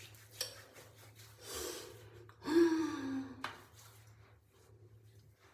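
A person's breathy intake of breath, then a short breathy vocal sound like a gasp, falling in pitch, about two and a half seconds in. A faint steady low hum runs underneath.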